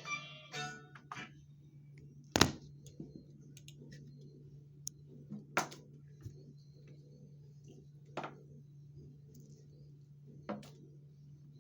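Four sharp clicks or taps, about two and a half seconds apart, over a steady low hum.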